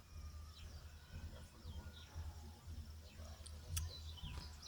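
Small birds chirping in short, quick, downward-slurring notes, several overlapping, over a steady high hiss and a constant low rumble.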